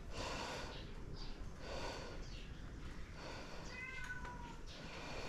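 A cat meowing faintly a few times, with the clearest, most tuneful meow about four seconds in.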